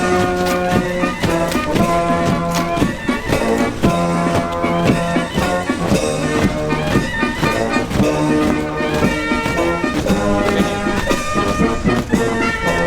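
Brass band playing a march, with held brass notes over a steady drum beat.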